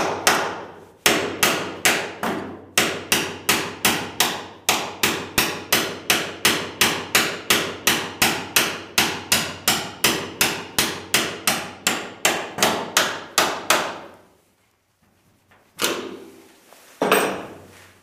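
Hammer striking a steel drift held against a car door hinge pin: a steady run of sharp metal blows, about three a second, that stops about three-quarters of the way through, with two more knocks near the end. The pin is still tight in the hinge and moves only slowly under the blows.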